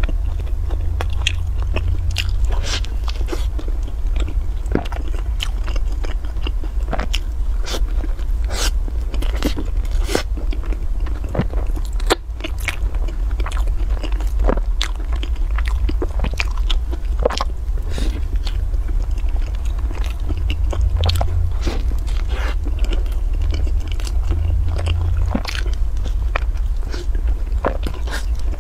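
Close-miked eating of balls with a crispy shredded coating: many sharp crackly crunches and chewing sounds in quick, irregular succession, over a steady low hum.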